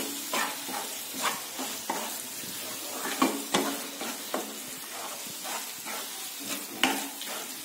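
Onion-tomato masala sizzling gently in a non-stick kadai while a utensil stirs the freshly added ground spices through it, with irregular scrapes and taps against the pan.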